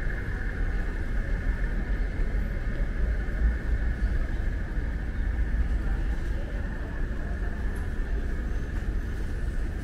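Steady ambience of a railway station concourse: a constant low rumble with a steady mid-pitched hum over it.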